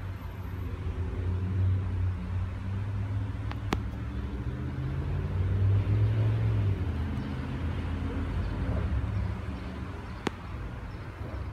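Low hum of a motor vehicle's engine, swelling over the first couple of seconds and fading near the end, with two sharp clicks.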